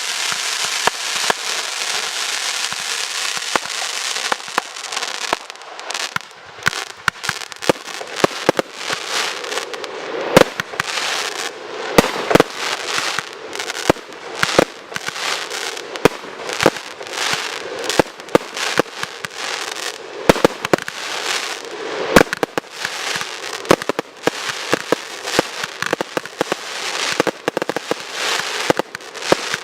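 Fireworks display: a dense crackling hiss for the first few seconds, then a quick succession of sharp shell bangs mixed with crackle, a few standing out louder than the rest.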